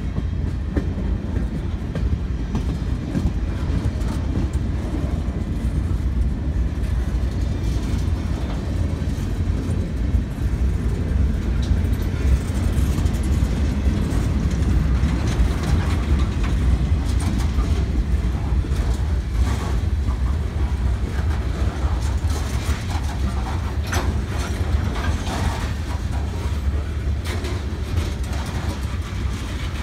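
Freight train cars rolling past in reverse. There is a steady low rumble of steel wheels on rail. Scattered metallic clicks and clanks become more frequent from about halfway through.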